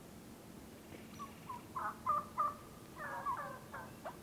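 Turkey calls: a string of short notes starts about a second in and grows louder, with a quick rattling run of notes about three seconds in.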